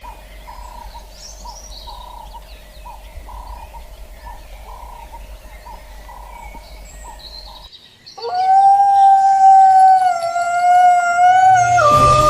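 A run of short repeated calls, about one and a half a second, with faint bird chirps. Then, after a break, a young canine howls: one long held note that drops in steps near the end.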